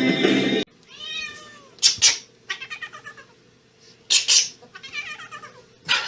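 A cat meowing over and over in separate calls, with two louder, sharper cries about two and four seconds in.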